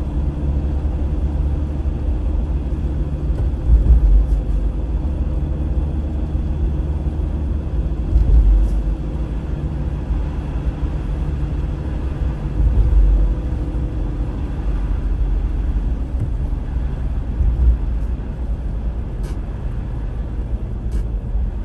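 Car road noise as heard from inside a moving car: a steady low rumble of tyres and engine. A few louder low swells come roughly every four to five seconds.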